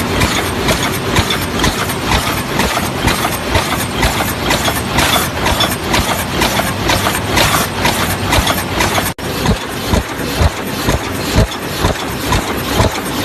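Paper cup forming machine running, a loud, dense mechanical clatter. About nine seconds in it breaks off for an instant, then continues with a regular beat of strokes about twice a second.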